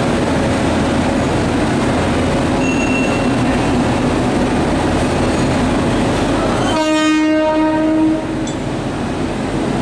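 WAP7 electric locomotive running with a steady machine hum and whir, then sounding one short horn blast of about a second about seven seconds in.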